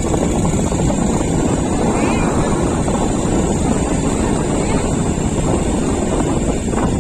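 Vehicle travelling along a road: steady engine and road noise with wind buffeting the microphone.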